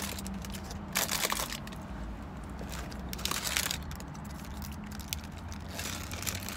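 Paper burger wrapper crinkling in three short bursts as hands pull and fold it back.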